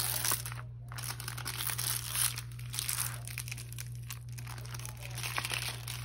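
Clear plastic protective film on a diamond painting canvas crinkling irregularly as hands lift and smooth it.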